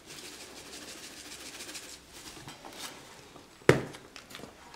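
Spice shaker jar of dried parsley flakes being shaken, a faint light rattle, then one sharp knock near the end.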